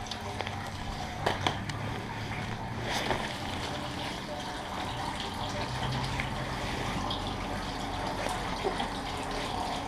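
Water running and splashing in a concrete car wash bay, a steady wash of noise with a few brief knocks about a second and a half in and again around three seconds.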